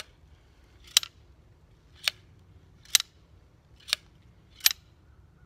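Sharp metallic clicks from an old shotgun, about six of them at roughly one a second: a strange noise the gun is making, which the owner wonders may come from the choke.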